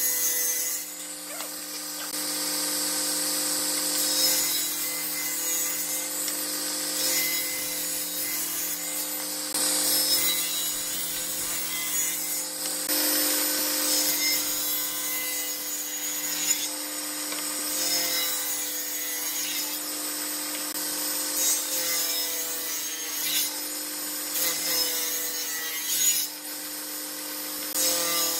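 Table saw running with a steady motor hum while its circular blade rips a series of wooden boards fed along the fence. Each cut brings a harsh, high sawing noise over the hum, swelling and easing many times.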